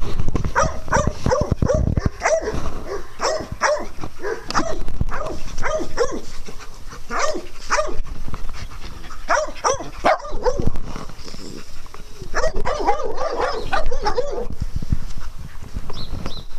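Small dogs barking in short, repeated yaps during play, with a denser flurry of barking about three quarters of the way through.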